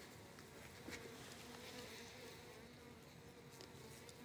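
Faint steady buzzing hum of a honeybee colony swarming over the combs of an opened wooden box hive, with a light click about a second in.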